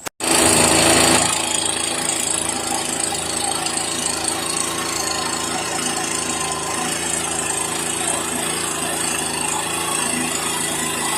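Husqvarna 125B 28cc two-stroke handheld leaf blower running steadily, its engine hum under a strong rush of air, a little louder for about the first second.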